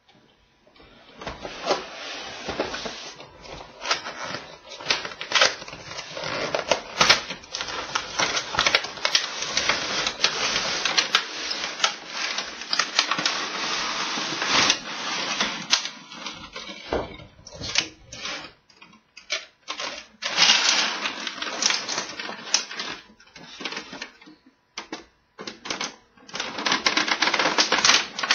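Cardboard box and thin moulded plastic tray of a toy power tool play set being handled and opened: a busy run of crinkling, rustling and clicking plastic, with a few short pauses in the second half.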